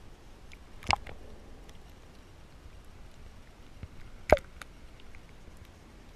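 Underwater sound of a shallow coral reef: faint scattered clicks and crackle, with two sharp loud clicks, one about a second in and a louder one just after four seconds.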